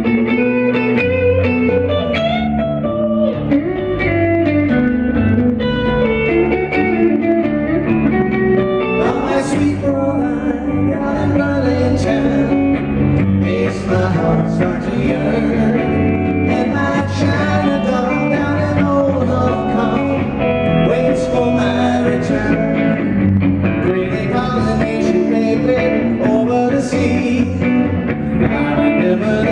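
Live band playing a rock-and-roll pop song led by electric guitar, with a man's lead vocal sung into a microphone coming in about nine seconds in.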